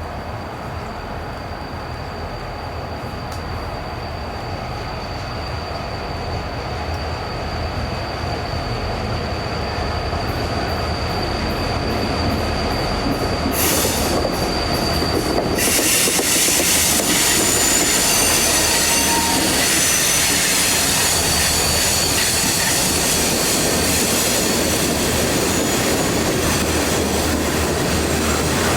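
A train drawing closer and running by, growing louder over the first half, with its wheels squealing on the rails. About halfway in, a high steady whine gives way to a loud, high-pitched hissing squeal from the wheels that holds to the end.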